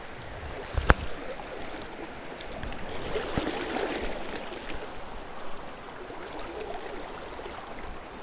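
Steady rush of a shallow river flowing, swelling a little a few seconds in, with a single sharp click about a second in.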